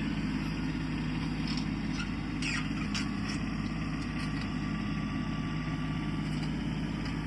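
Kubota tractor's diesel engine running steadily under the backhoe as it digs a trench, with a few faint clicks partway through.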